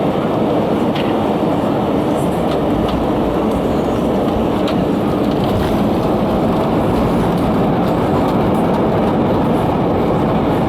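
Steady loud rumble and roar inside the cabin of a JetBlue Airbus A320, from its engines, rushing air and the airframe, around touchdown and the landing roll. A few faint clicks from the cabin can be heard over it.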